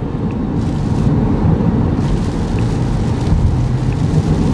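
Steady low rumble inside the cabin of a 2014 GMC Terrain at about 53 mph on a wet highway: tyre and road noise mixed with its 2.4-litre four-cylinder engine at cruise.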